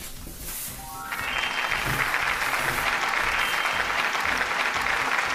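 Applause sound effect, many hands clapping, starting about a second in and holding steady.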